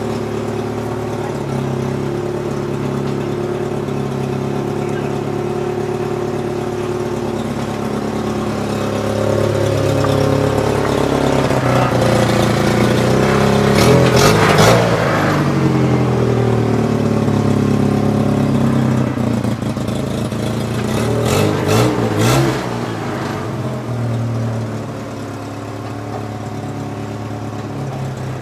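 A vehicle engine running, rising twice in pitch and level as it is revved: once from about ten to fifteen seconds in, and again around twenty-one seconds. Each peak comes with a few short noisy bursts.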